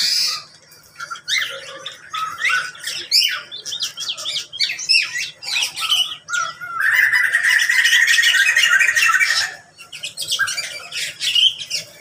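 A mixed flock of aviary birds calling over each other in many short chirps and squawks. From about seven to nine and a half seconds in, a fast trilled chatter runs on steadily.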